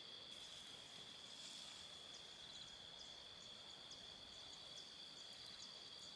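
Faint chorus of insects, two steady high-pitched trills with a few short chirps above them.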